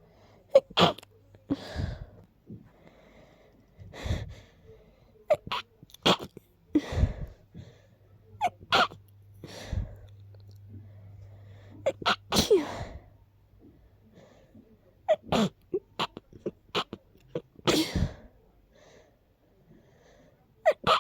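A person with a stuffy nose from a cold sneezing sharply, over and over, some sneezes coming in quick pairs.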